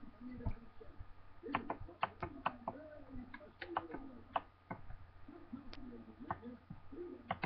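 Faint, irregular clicking of computer keys, about a dozen sharp clicks spread unevenly, over a faint low background murmur and hum.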